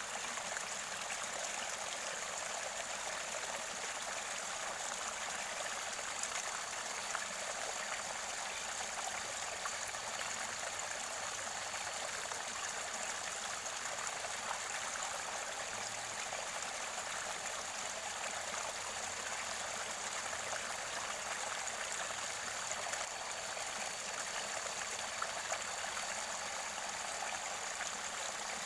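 Mountain stream water running and gurgling steadily near its spring source.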